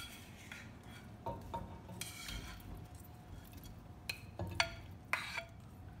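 A ladle knocking and scraping against a ceramic bowl while pieces of raw sardine are scooped out and dropped into an earthenware pot. It gives about half a dozen light, separate clinks and knocks.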